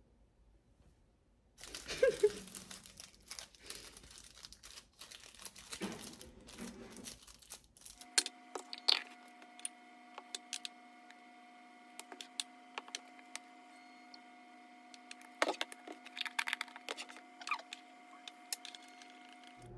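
Plastic wrappers crinkling and tearing as processed cheese slices are peeled out of them. About eight seconds in, this gives way to a metal spoon scooping thick gochujang and clinking and scraping against a small glass bowl, over a steady hum.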